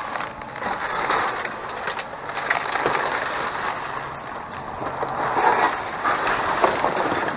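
Trash being rummaged through in a dumpster: an irregular run of rustling, crunching and crackling with scattered clicks.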